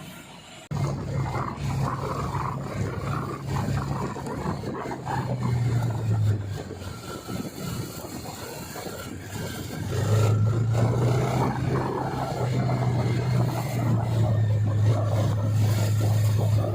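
Kawasaki Ninja 250 motorcycle with an Akrapovic exhaust running under way, its steady engine note mixed with wind and road noise. It cuts in suddenly about a second in, eases off around the middle, and comes back louder at about ten seconds.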